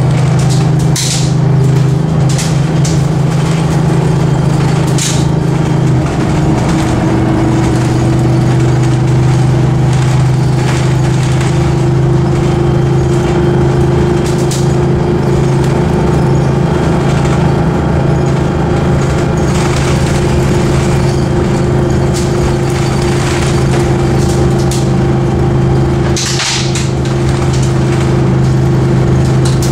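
MCI Classic coach's Detroit Diesel 6V92TA two-stroke turbocharged V6 running steadily under way, heard from inside the cabin, its tone shifting once about six seconds in. Scattered brief knocks and rattles come from the body on the gravel road, with a stronger clatter near the end.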